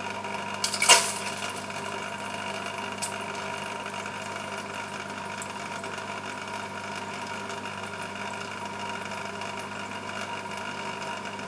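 Steady hum of a small electric motor, with a brief rushing noise about a second in.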